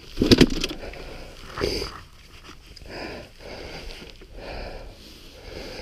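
A rider breathing hard into the helmet, about one heavy breath every second and a half, with a short clatter about a quarter of a second in.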